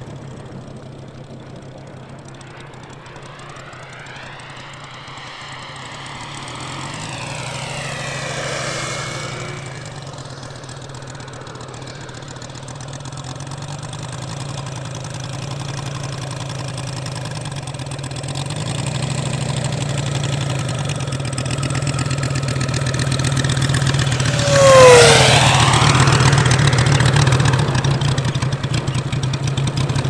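Moki 250 five-cylinder radial engine in a large scale La-7 model running at idle as the plane taxis. It grows louder toward the end, peaks as it passes close about 25 seconds in, then drops in pitch.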